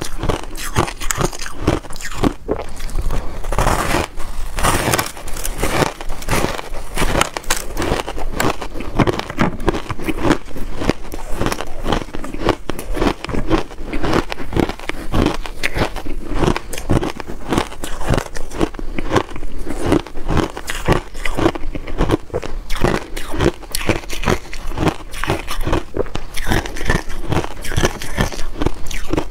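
Reshaped ice being bitten and chewed close to the microphone: a dense, continuous run of crisp crunches, several a second.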